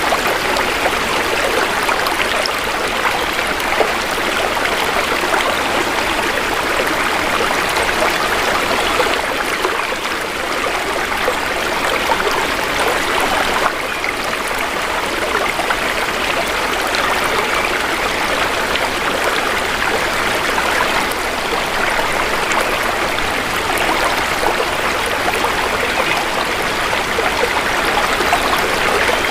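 Shallow river water flowing steadily, a continuous babble and trickle.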